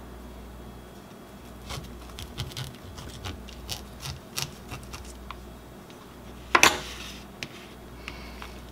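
Kitchen knife cutting through crisp-skinned air-fried baked potatoes on a plastic plate: scattered small clicks and taps as the skin gives way and the blade meets the plate, with one louder sharp knock about two-thirds of the way through.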